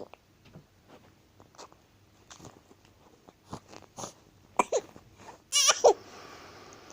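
Baby giving two short whimpering cries that fall in pitch, about four and a half and five and a half seconds in, after a stretch of faint small mouth sounds and clicks.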